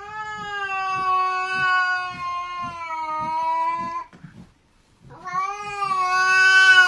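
A cat yowling: one long drawn-out call of about four seconds, its pitch sagging slightly toward the end. After a short pause, a second yowl starts about five seconds in.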